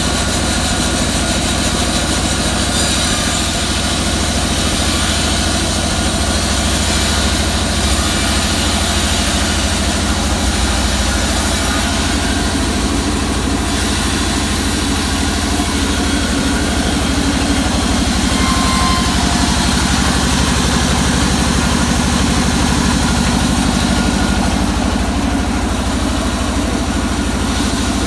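Sawmill band saw running steadily as it cuts lengthwise through a waru log: a constant, unbroken machine drone.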